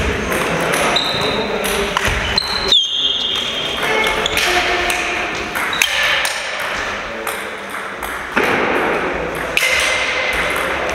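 Table tennis rally: a celluloid-type ball repeatedly struck by rubber-faced paddles and bouncing on the table, a quick irregular run of sharp clicks, with a few short high squeaks of shoes on the wooden floor.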